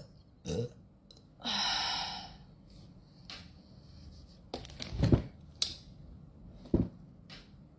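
A person burping in a few short, low bursts, with a breathy exhale about a second and a half in and several soft clicks between them.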